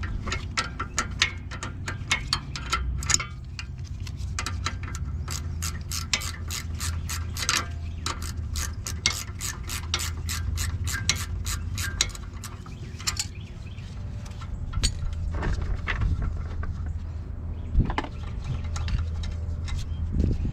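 Hand ratchet clicking in quick repeated strokes as it backs out a rear brake caliper bolt whose nut spins and is held with pliers, over a steady low hum.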